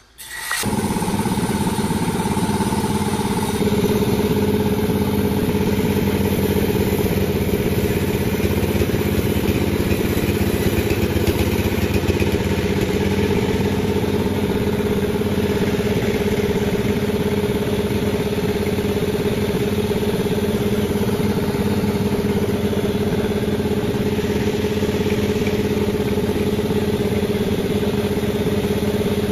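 Panda36 sawmill's engine running steadily at a constant speed, starting abruptly just after a brief drop at the very start.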